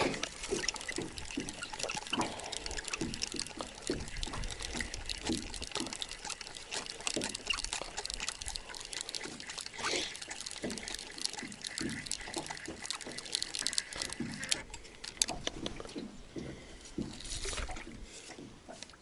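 Water splashing and dripping in irregular small splashes as a hooked fish is played and brought in at the water's edge.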